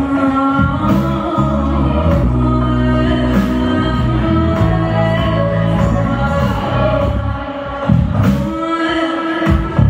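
A live band playing a song: sung vocals over bass, guitar and drums.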